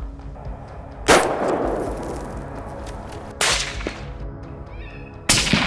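Three gunshots, each a sharp crack with a short echoing tail. The first, about a second in, is the loudest and rings longest; the others come about two seconds apart.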